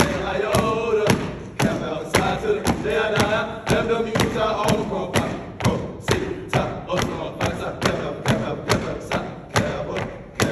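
Stepping on a wooden stage: rhythmic stomps and claps, about two a second under chanting voices, then picking up to about three a second as the chant drops away near the middle.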